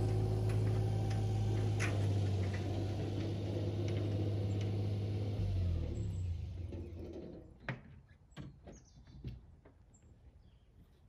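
Small engine of a Japanese mini truck (kei truck) running steadily as it drives slowly over grass and pulls up, then shutting off about six seconds in. A few short knocks and clicks follow, typical of someone moving about in the cab.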